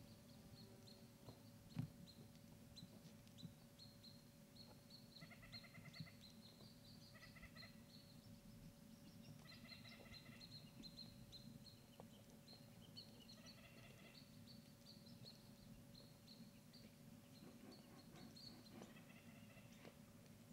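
Faint songbirds chirping over a quiet forest background: short high notes repeated steadily, with bursts of quick trills every few seconds. A few soft clicks or snaps stand out in the first few seconds.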